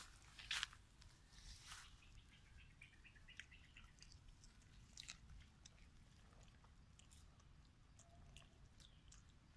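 Faint rustling in grass with a few short sharp clicks, the loudest about half a second in, from monkeys moving and handling things in the grass.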